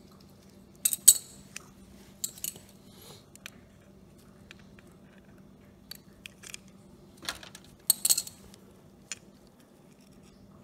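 Sharp metallic clicks and clinks of pliers and small metal carburetor parts being handled as a small-engine carburetor is taken apart. The clicks come in clusters about a second in, around two seconds, around six to seven seconds, and loudest near eight seconds, over a faint steady low hum.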